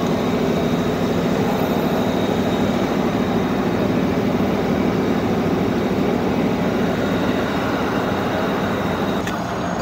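Electric commuter train running: a steady rumble with a thin, steady high whine over it.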